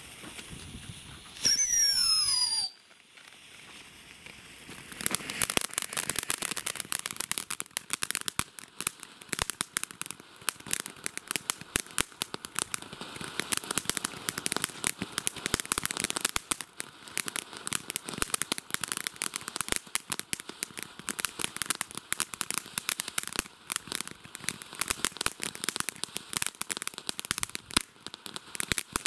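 Triple fountain firework spraying sparks, with a dense, steady crackle of crackling stars setting in about five seconds in and running on. Near the start there is a brief loud whistle that slides in pitch.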